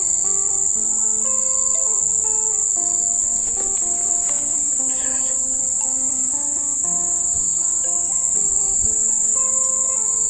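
Steady, high-pitched insect chorus with background music of slow melodic notes underneath.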